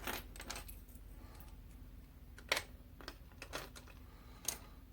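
Faint, scattered light clicks and taps of small plastic pencil-lead tubes and eraser packs being picked up and set down on a table. The sharpest clicks come about halfway through and near the end.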